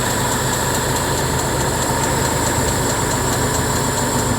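Tractor-powered flour mill (atta chakki) running steadily: the tractor engine's drone with a steady whine and a fast, even ticking from the machinery.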